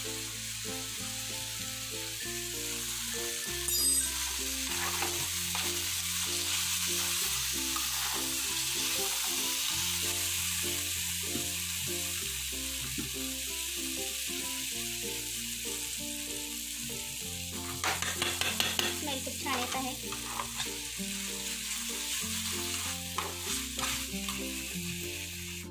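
Shredded vegetables and sauces sizzling in hot oil in a non-stick frying pan, stirred and scraped with a steel spatula. There is a brief knock about four seconds in, and the scraping is busiest about two-thirds of the way through.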